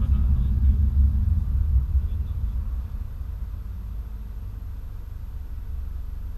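Low rumble of a car's engine and tyres heard from inside the cabin, dropping to a quieter steady hum about three seconds in as the car slows to a stop in a traffic queue.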